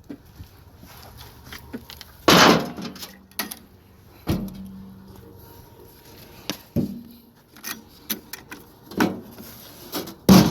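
Irregular knocks and clanks, about six of them, the loudest about two seconds in and another near the end, several followed by a brief low metallic ring.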